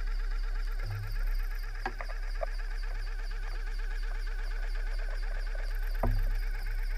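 Steady mechanical hum with warbling tones. Sharp clicks come about two seconds in, and a knock with a low thump near the end.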